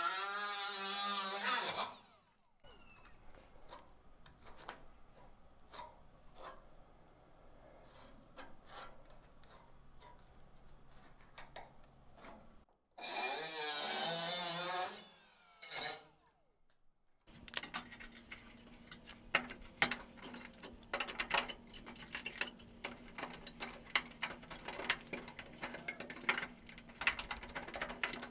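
Small cordless die grinder with a disc grinding rusted sheet steel, its whine wavering in pitch, in two short bursts about a couple of seconds long: one at the start and one about halfway through. Between and after the bursts come clicks and scraping as rusted metal is picked and crunched away with pliers. Near the end there is a rapid run of sharp snaps over a steady low hum.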